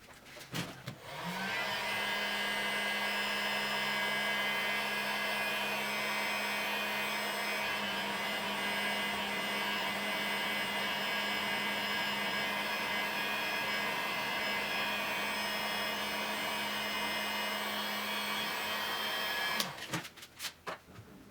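Heat gun switched on about a second in, blowing steadily for about 18 seconds with its motor hum, then switched off and winding down near the end, heating a hard watercooling tube to soften it for bending. A few handling knocks come just before and after it.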